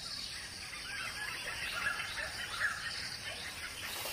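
Outdoor nature ambience with birds chirping: a faint steady hiss and many short chirps that rise and fall in pitch.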